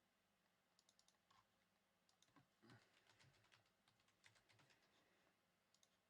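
Near silence with faint, scattered clicks of typing on a computer keyboard.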